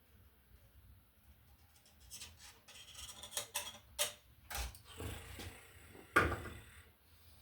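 Irregular clicks, taps and scrapes of hand tools and stiff copper wire being worked at a wall receptacle's terminals, starting about two seconds in, with the sharpest knock a little after six seconds.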